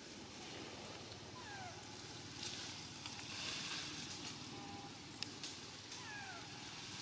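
Two short, high, falling calls from an infant long-tailed macaque, one about a second in and one near the end. A few light clicks come just before the second call.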